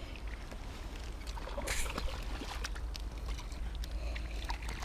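Water lapping and sloshing against shoreline rocks over a steady rumble of wind on the microphone, with light clicks and knocks from the spinning rod and reel being handled and a short splashy hiss about two seconds in.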